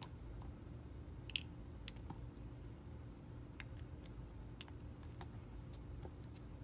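Utility knife blade shaving thin curls off the edge of a clear glycerin soap bar: about a dozen crisp, sharp clicks at irregular intervals, the loudest about a second and a half in, over a faint steady low hum.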